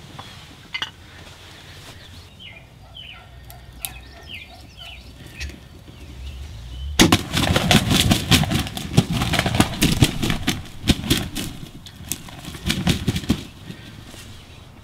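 Wild turkey wings flapping hard, a dense run of wing beats and thrashing in the ground cover, starting about seven seconds in and lasting about six seconds. Before it, a few faint high bird calls.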